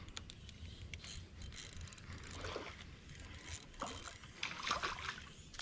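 Daiwa Regal 1000 spinning reel being cranked with fine ticking while a small panfish is reeled in, splashing at the surface in short bursts.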